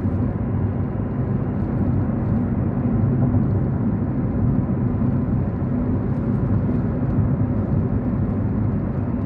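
Steady low mechanical rumble with a faint hum in it.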